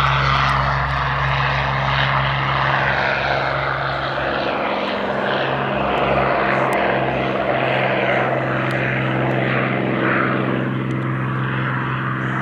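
Hawker Hurricane Mk.IIB's Merlin V12 piston engine and propeller running with a steady drone.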